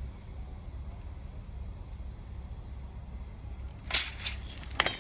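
Low steady outdoor rumble, then about four seconds in a quick rattle of sharp metallic clicks and one more sharp clack just before the end, as a steel tape measure is unhooked and retracted from a steel threaded bar.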